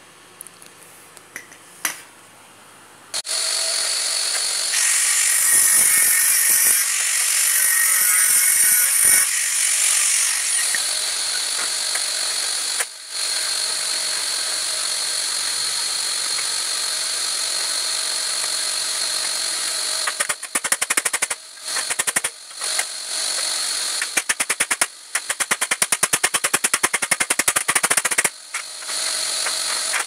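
Bosch angle grinder starting about three seconds in and running with a steady high whine, its disc grinding against the sheet-metal casing panel of an air-conditioner condenser. In the last third the sound breaks into rapid on-and-off stutters.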